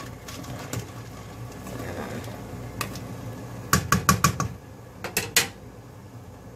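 A utensil knocking sharply against a steel stockpot of boiling seafood, in two quick runs of clicks, about five and then three, over a steady low hum.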